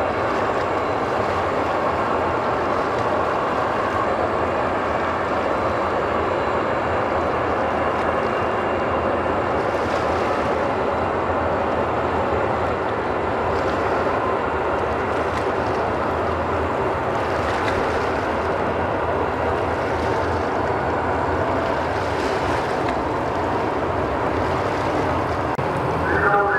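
Steady rushing machinery noise of a passing Murasame-class destroyer heard across the water, even and unbroken, with a low hum underneath.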